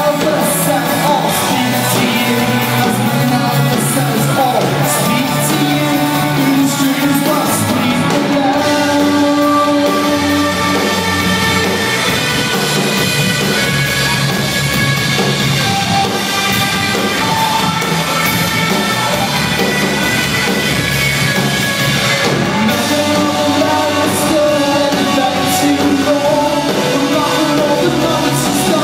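Live rock band playing: electric guitars, bass and drums, with a singer's vocals over them.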